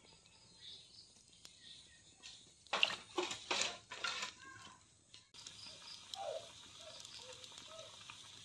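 A few brief splashes of water in a metal kadai holding raw pork pieces, a little under halfway through. Later come several faint short animal calls.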